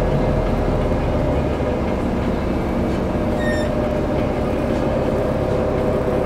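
Cummins ISL straight-six diesel of a Bustech ADi bus heard from the passenger cabin, running at a steady pitch while the bus is under way. A brief high tone sounds about halfway through.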